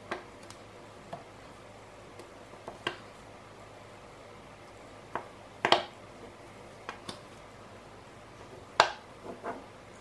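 Small metal magnetic balls clicking against one another as they are pressed and snapped into a wheel, about ten sharp clicks at irregular intervals, the loudest near the end.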